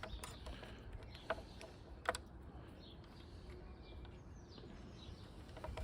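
A few faint, sharp clicks and taps of small parts being handled while the carburetor's choke cable is fitted, over a low steady background hum, with faint bird chirps in the middle.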